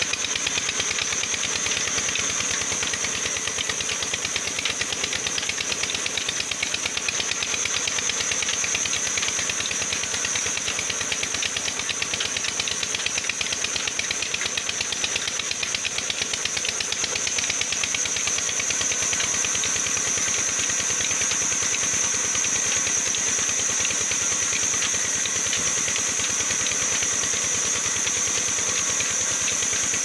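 A belt-driven band sawmill running steadily while its blade rips lengthwise through a log. The drive engine keeps up a fast, even knock, with a constant high whine over it.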